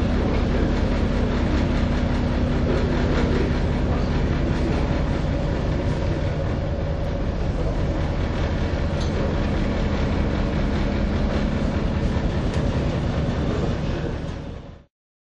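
Tugboat's engine running with a steady hum and rumble under a dense hiss of wind and sea, cutting off abruptly near the end.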